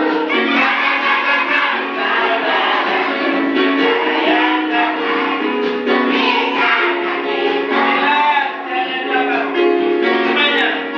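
A group of schoolchildren singing a Christian praise-and-worship song together, led by a man singing into a microphone.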